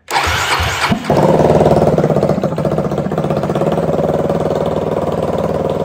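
2006 Suzuki LT-R450's single-cylinder four-stroke engine cranking for about a second, then catching and running steadily at idle.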